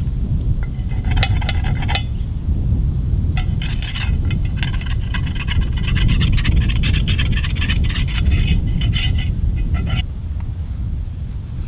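Wind buffeting the microphone, with bursts of scraping as a pan is scrubbed at the river's edge: once briefly about a second in, then again from about three and a half seconds until about nine and a half seconds in.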